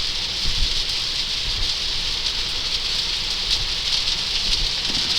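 Heavy rain on a Tesla Model 3, heard from inside the cabin as a steady hiss over a low rumble of tyres on the wet road.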